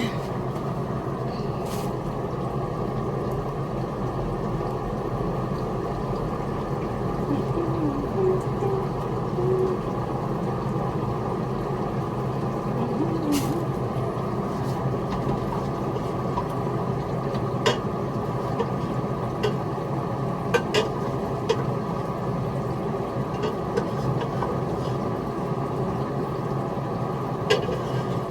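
A steady mechanical hum throughout, with a few sharp clinks of glass bowls and utensils as food is dished up.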